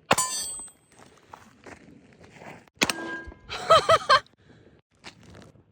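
Two sharp gunshots about three seconds apart, the first followed by a brief metallic ring.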